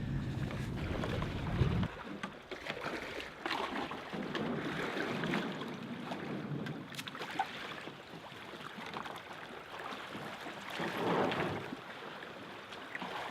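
Kayak paddle strokes splashing and water slapping against the kayak in choppy water, with wind buffeting the microphone for about the first two seconds.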